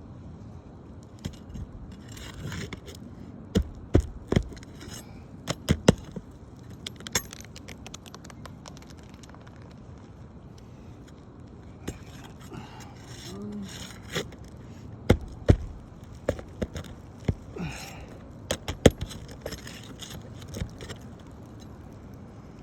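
Metal hand tools working at a damaged roof shingle to change it: scattered sharp clicks and knocks with scraping, in two busy spells.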